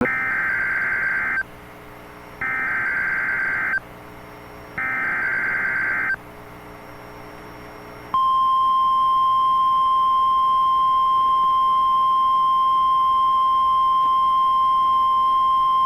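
Emergency Alert System SAME header: three bursts of rapid two-pitch digital data tone, each about a second and a half long with about a second's gap between them. About eight seconds in, the steady single-pitch 1050 Hz weather radio warning alarm tone starts and holds unbroken, marking the start of an NWS severe thunderstorm warning broadcast.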